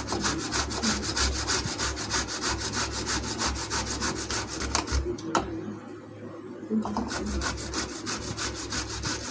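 Boiled potato being grated on a stainless steel box grater: a rapid, even run of rasping scrapes, about five strokes a second, broken by a pause of about a second midway before the strokes resume.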